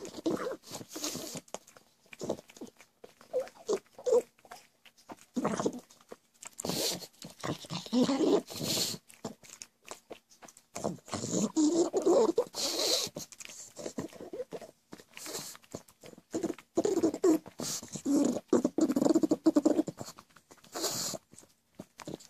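Pug snorting and snuffling with its nose to the carpet as it eats treat crumbs, in irregular bursts with short pauses between them. The noisy breathing is typical of the breed's short, flat-faced airway.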